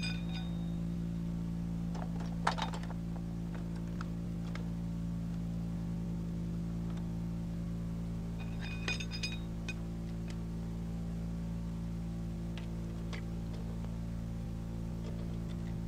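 Steady low electrical hum, with a few light metallic clicks and clinks from the MG 34's feed cover and ammunition belt being handled during loading. The sharpest click comes about two and a half seconds in and another ringing click about nine seconds in.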